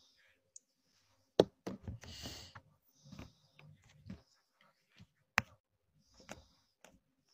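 Scattered faint knocks and rustles, with two sharp, loud clicks about four seconds apart and a short hiss soon after the first.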